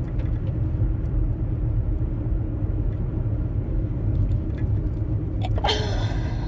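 A woman's high-pitched sneeze, one short burst about five and a half seconds in, over a steady low rumble.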